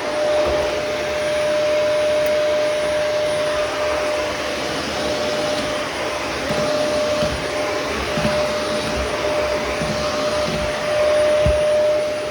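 Vacuum cleaner running steadily, a constant motor whine over the rush of suction, with a few dull low knocks in the second half as it is worked over the floor.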